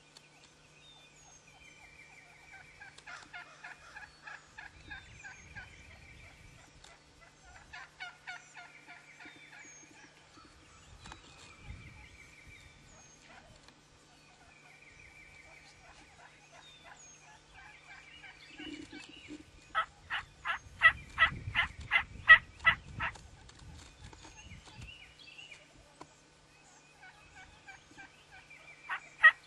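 Wild turkey toms gobbling, several times over: a few fainter gobbles, then a much louder, close gobble about twenty seconds in.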